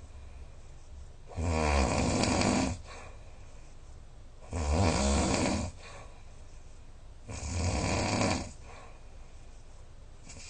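A sleeping person snoring loudly: three long snores about three seconds apart, with quiet breathing between them.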